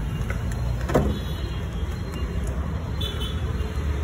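Steady low rumble of street noise, with one sharp knock about a second in.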